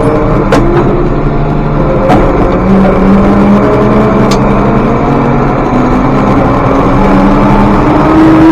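Tractor engine running steadily under load while pulling a loaded grain wagon, heard from inside the cab, with a few sharp clicks. Its pitch creeps up near the end.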